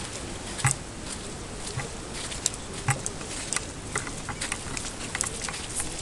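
Footsteps of a person walking, soft thumps about a second apart, with scattered light clicks and ticks over a steady hiss.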